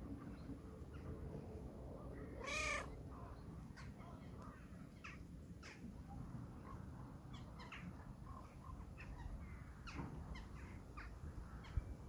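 A crow gives one clear, drawn caw about two and a half seconds in, among scattered short, faint high calls and a low background rumble.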